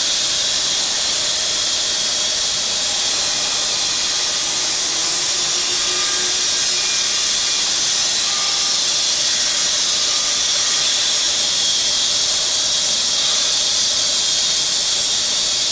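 Lynx EA bandsaw mill running along a log as its blade cuts: a loud, steady hiss.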